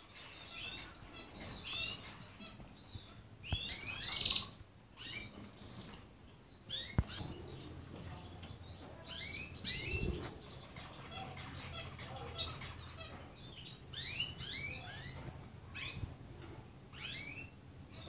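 Domestic canaries chirping and twittering in quick runs of short high notes, louder about four seconds in, with a few light clicks between the runs.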